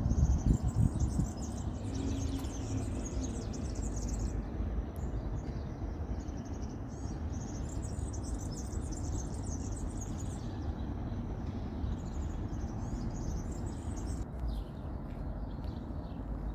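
Small songbirds chirping and twittering in quick bursts, coming and going in three spells, over a steady low background rumble.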